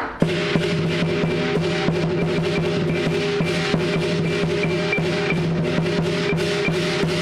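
Lion dance percussion: a large drum beating a steady rhythm of about three strokes a second, with crashing cymbals and ringing gongs.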